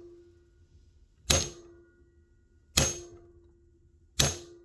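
Hammer striking a hand impact screwdriver three times, about a second and a half apart, each blow a sharp metallic clang with a brief ringing tone after it. The blows are breaking loose baked-in motorcycle intake manifold bolts.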